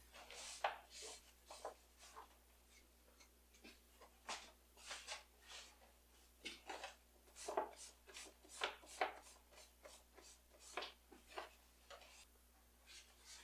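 Quiet, irregular rustling and scraping from hands handling things, in many short strokes of uneven spacing.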